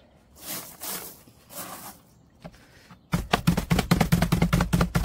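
Hands rustling and shifting loose pea gravel in a wooden barrel around a post, in a few soft swishes. From about three seconds in, a fast, even run of sharp knocks, five or six a second, louder than the gravel.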